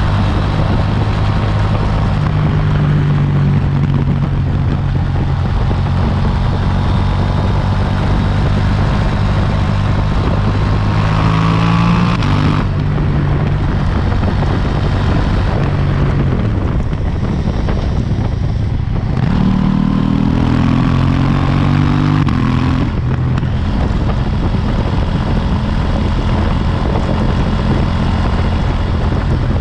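KTM 790 Duke's 799 cc parallel-twin engine with its stock exhaust, running under way. The revs climb twice, about a third of the way in and again about two-thirds in, each climb breaking off suddenly as the throttle shuts or a gear changes, with a brief lull between.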